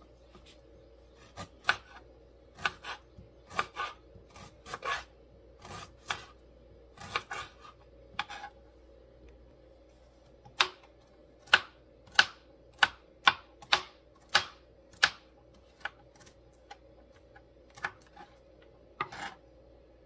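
Knife chopping on a plastic cutting board, slicing limes and garlic cloves: a series of sharp knocks, irregular at first, then a steadier run of strokes at roughly two a second from about ten to fifteen seconds in.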